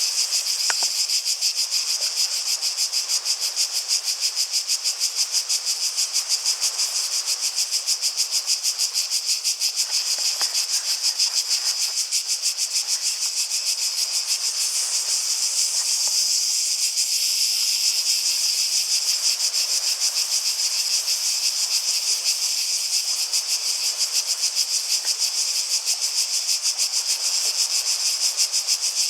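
Cicadas buzzing loudly and without a break in a fast, even pulse.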